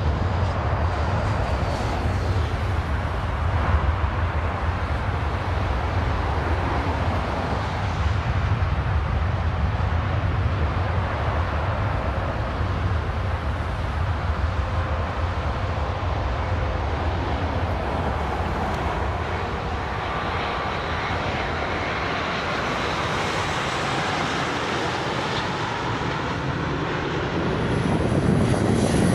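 Jet airliner engines heard from a distance on a crosswind approach and landing, over a steady low wind rumble on the microphone. Near the end the sound of a de Havilland Canada Twin Otter turboprop grows louder as it comes in to land.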